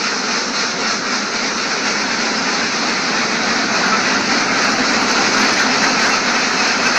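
Steady mechanical running of an automatic duck-cage system: the egg collector's lifts and egg conveyor belts moving, a continuous even clatter and hum with no distinct strokes.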